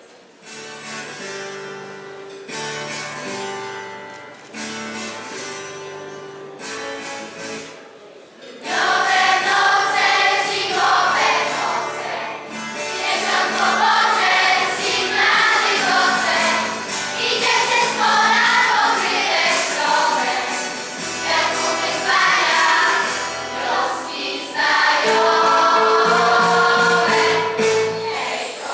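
A Polish Christmas carol (kolęda) performed by a choir with instrumental accompaniment: a short introduction of held chords, then the choir comes in about nine seconds in and sings on over the accompaniment.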